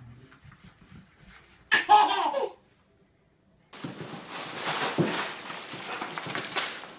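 A baby laughing in one short burst about two seconds in. From about four seconds in, a steady noisy room sound with scattered knocks and clicks follows.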